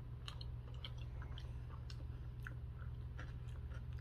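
A person chewing a mouthful of soft red potato salad close to the microphone: faint wet mouth clicks and smacks, over a steady low hum.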